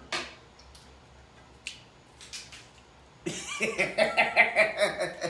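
Eating sounds from a seafood boil: a few short sharp cracks and snaps of shellfish shells being broken open. From about three seconds in, a wordless voice sounds over them.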